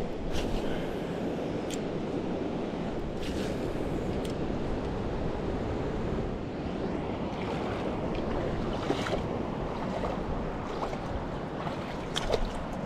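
Steady rush of a shallow river running over rocks, mixed with wind buffeting the microphone. A few light clicks and knocks sound over it, a small cluster of them near the end.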